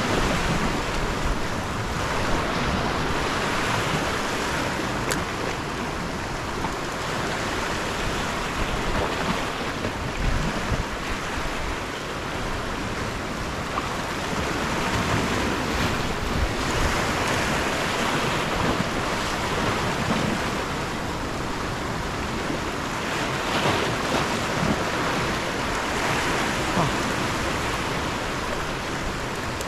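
Ocean surf washing onto a rocky shore, swelling and easing every few seconds, with wind buffeting the microphone.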